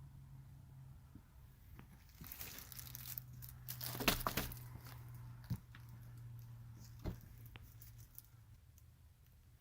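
Rustling and crinkling for a few seconds, then a couple of sharp clicks, over a low steady hum.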